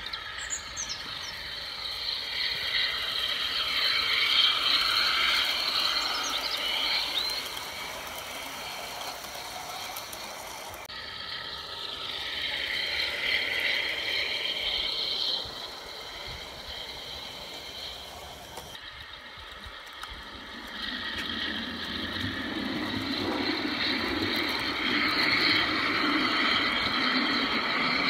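O gauge model Class 52 diesel-hydraulic locomotive running along garden railway track, giving a high, wavering whine of several tones that rises and falls with its speed. The sound changes abruptly about 11 and 19 seconds in, and a deeper rumble joins it over the last several seconds.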